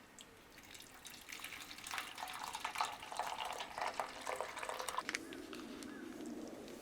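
Water splashing and dripping, with many small clicks, from about a second in until about five seconds in. After that comes a low steady hum.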